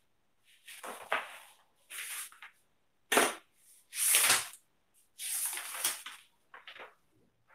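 Paper rustling close to the microphone as sheets or book pages are handled and turned, in a series of short bursts. The loudest come about three and four seconds in.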